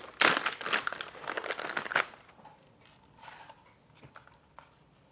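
Plastic packaging crinkling loudly as a part is unwrapped, stopping abruptly about two seconds in, followed by a brief faint rustle and a few light ticks.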